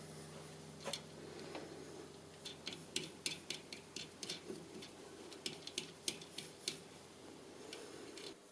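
Faint, irregular light metallic clicks and taps of tools and the steel workpiece being handled at a metal lathe, over a low steady hum.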